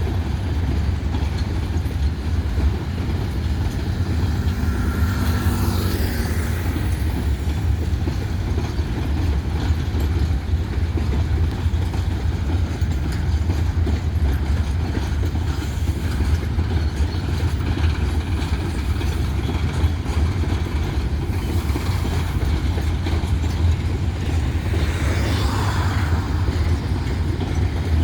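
Freight train of empty grain hopper cars rolling past with a steady low rumble, with a brief squeal-like tone once or twice.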